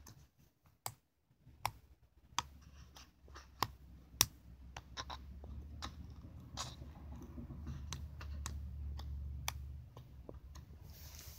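Dish-soap slime being squished with fingers in a plastic bowl: faint, scattered sticky clicks and pops about a second apart, with a low rumble of handling through the later part.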